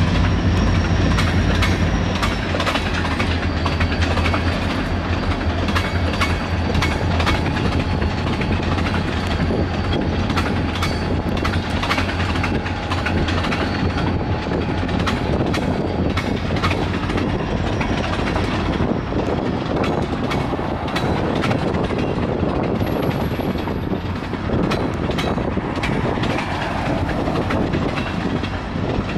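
Long freight train of tank cars rolling past, its steel wheels clicking over the rail joints, with the low drone of the diesel locomotives fading after the first several seconds.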